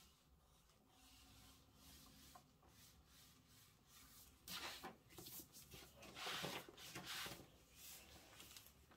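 Pencil scratching across brown pattern paper as a line is drawn. It is faint, with two louder stretches of scratching a little past halfway.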